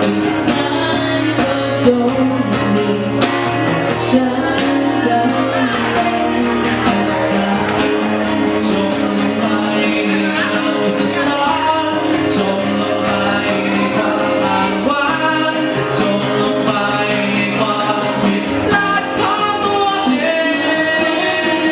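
A song: singing over guitar and other instrumental accompaniment.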